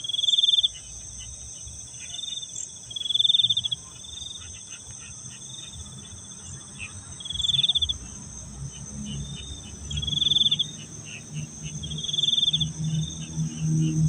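Night insects, crickets among them, chirping in a steady high-pitched chorus, with a louder pulsing trill about half a second long breaking in every two to three seconds. A low hum builds up in the last few seconds.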